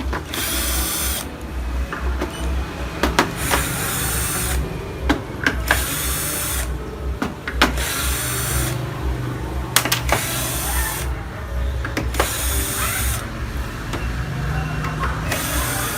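Electric screwdriver whirring in short bursts of about a second, seven or so in a row, backing out the screws of a flat-screen TV's back cover, with small clicks between bursts.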